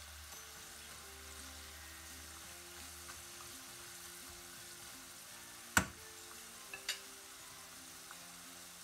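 Bitter gourd slices deep-frying in hot oil, a steady sizzle. A sharp click about six seconds in and a lighter one a second later, as the slotted spoon turning the slices knocks the steel pan.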